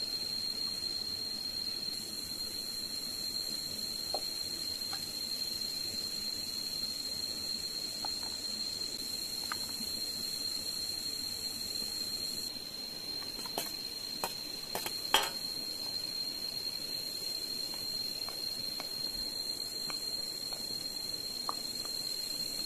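A steady high-pitched whine holding one pitch throughout, over a low hiss, with a few faint clicks and one sharper click about fifteen seconds in.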